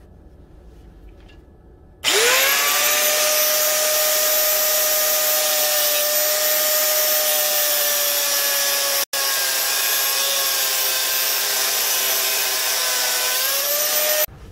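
Angle grinder with a thin cut-off disc cutting through a 5160 steel leaf spring. The motor comes in suddenly about two seconds in and runs loud and steady with a high whine and a hiss, drops out for an instant midway, rises a little in pitch near the end as the disc comes out of the cut, then cuts off suddenly.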